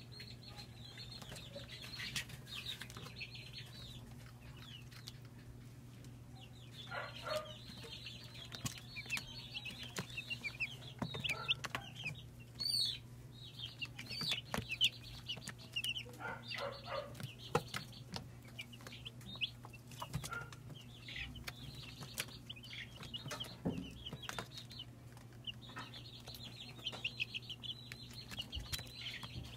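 Young broiler chicks peeping, many short high cheeps overlapping, with now and then a louder run of calls from a chick close by. A steady low hum lies underneath.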